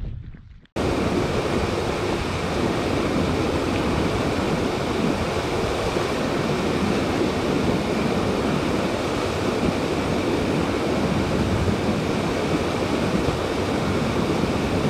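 Small waterfall rushing over boulders into a pool: a steady wash of falling water that cuts in suddenly about a second in.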